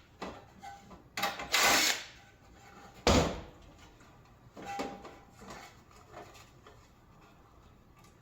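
Hand tools working on a stainless steel coffee warmer's housing while nuts are taken off: a short rasping rattle about one and a half seconds in, a sharp metal knock about three seconds in, and a brief ringing clink near five seconds, then light scattered clicks.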